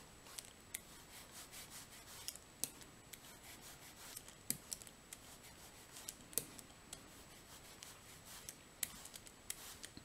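Foam sponge brayer rolled on an ink pad and back and forth over paper die-cut masks: a faint, soft rubbing with scattered light clicks and taps.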